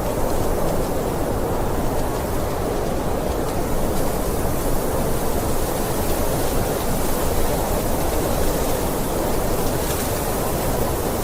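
Blizzard wind blowing steadily: a dense, low rushing noise with only slight swells and no breaks.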